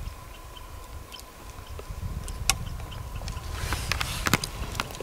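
Low rumble of handling noise with scattered clicks, then a short burst of rustling through conifer branches with sharp snaps about three and a half seconds in, as the camera is moved.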